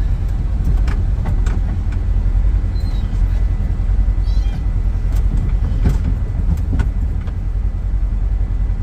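A dog whining, a few short high cries, over a steady low rumble with scattered clicks.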